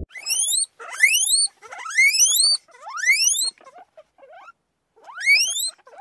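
Rat squeaking: five squeaks, each rising steeply in pitch over half a second to a second, with a few faint short squeaks in a gap between the fourth and fifth.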